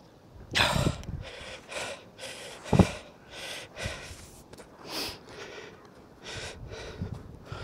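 A person breathing hard in short, rapid noisy breaths and gasps while straining to haul in a rope whose magnet is stuck fast underwater, with one sharper loud burst near the third second.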